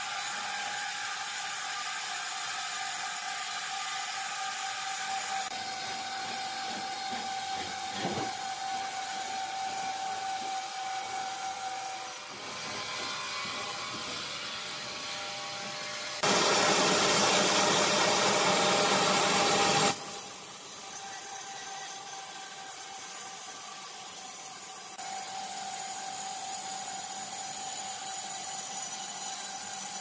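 Horizontal band sawmill cutting lengthwise through a large squared timber: a steady hiss of the blade in the wood with a constant whine over it. Past the middle it turns louder and harsher for about three seconds, then drops back.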